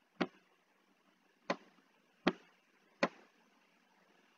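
Four sharp computer mouse clicks, spaced unevenly about a second apart, over a faint steady hiss.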